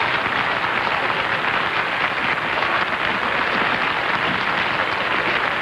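Studio audience applauding, a steady dense clapping that holds at an even level throughout.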